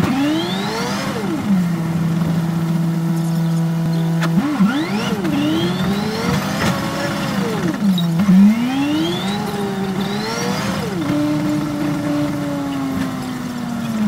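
Yutong ZK6831HGA city bus engine heard from the driver's seat, its pitch climbing and falling again several times as it is revved up and eased off, with steadier stretches at a lower, even note in between.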